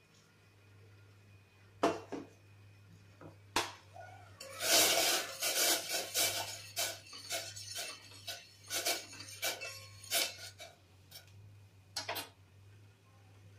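Stainless-steel utensils clinking and scraping: a couple of sharp clinks, then several seconds of quick scraping and tapping as grated ginger is scraped off a steel plate into a steel pot of water, and one more pair of clinks near the end. A low steady hum runs underneath.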